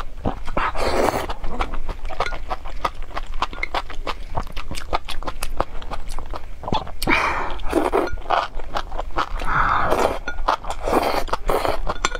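Close-miked eating of spicy enoki mushrooms in chili sauce: wet chewing with many quick mouth clicks and smacks, and several longer slurps of the mushroom strands, about a second in, around seven seconds and again near ten and eleven seconds.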